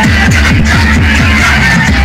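Loud electronic music with heavy bass, a quick run of falling bass slides, played through a car's sound system.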